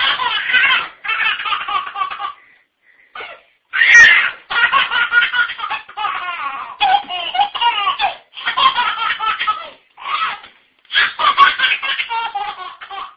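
Baby laughing in runs of short, quick bursts, with a pause about three seconds in and the loudest burst of laughter just after it.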